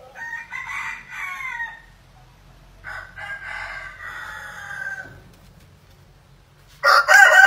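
Roosters crowing: two crows of about two seconds each, then a much louder crow starting near the end.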